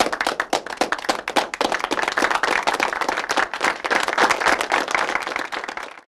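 Applause: many hands clapping steadily, cutting off suddenly near the end.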